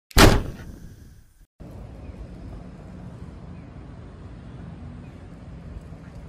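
A single sharp impact sound effect hits at the start and dies away over about a second. It is followed by steady low outdoor street noise.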